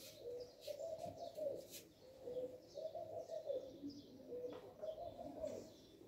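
A dove cooing over and over, its low phrases repeating every second or so, with small birds chirping faintly and briefly above it.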